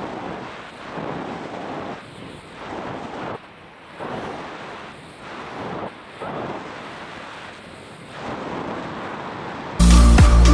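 Wind rushing over the microphone in uneven gusts. Loud music with a beat cuts in suddenly near the end.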